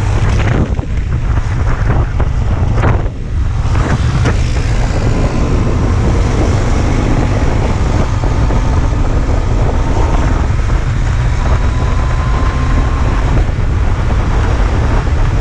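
Wind buffeting the microphone of a moving motorcycle, over the running of a Yamaha MT-09's three-cylinder engine. The engine's pitch climbs slowly through the middle of the stretch.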